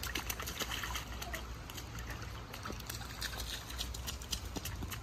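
A toddler's shoes splashing and stamping through a shallow rain puddle on asphalt, with water sloshing. The splashes come fast in the first second or so, then scattered.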